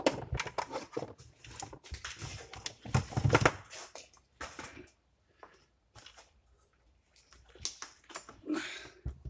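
Handling noise on a workbench: a 175-amp Anderson connector being unplugged, then a battery charger and jump-lead clamps being moved and set down. It is a run of clicks, knocks and rattles, loudest about three seconds in, with a quieter stretch in the middle and a few more knocks near the end.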